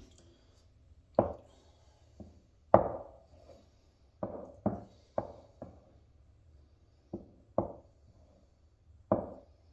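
A utensil knocking against a mixing bowl as pancake batter is stirred: about ten sharp knocks at uneven intervals, each with a short ring.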